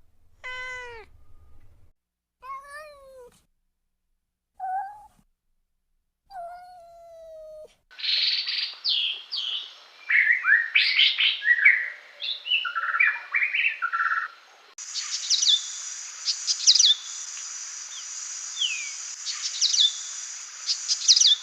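A domestic cat meowing several times, each meow a separate bending call. It gives way to small birds chirping and twittering in quick short notes, and after a cut about two-thirds of the way through, to more bird chirps over a steady high hiss.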